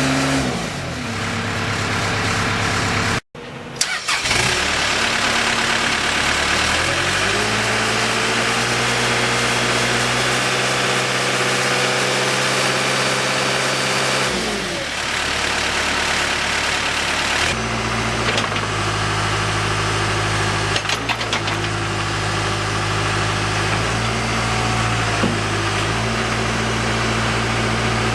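Case 580M Series 2 backhoe loader's diesel engine running, cutting out briefly, then started again about four seconds in. It revs up and holds a higher speed for several seconds before dropping back to idle around fifteen seconds in, then runs on with small changes in speed and a few clicks.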